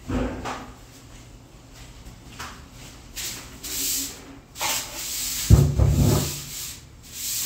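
Rubbing and brushing noises with a few dull knocks, the loudest a heavy low thump about five and a half seconds in: a person moving about close to the microphone and handling a wooden broom.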